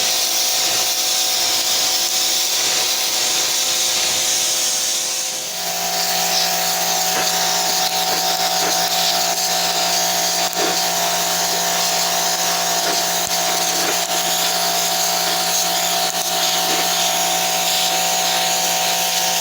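Small electric pressure washer running with a sandblasting attachment: a steady hissing spray over the motor's whine, with a brief dip about five seconds in after which a lower hum joins.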